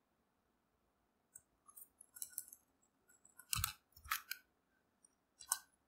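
Computer keyboard keys being typed: short, scattered clicks, with a few harder keystrokes about three and a half, four and five and a half seconds in.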